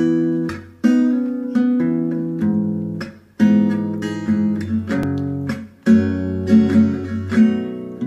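Background music of guitar chords strummed and left to ring, a new chord every second or two.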